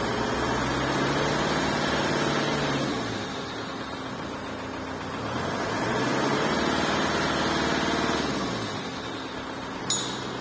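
The 2001 Kia Carnival's 2.9-litre turbo diesel engine is held at about 2,000 rpm, eases back toward idle about three seconds in, then is revved and held again before easing off near the end. A brief sharp click comes near the end.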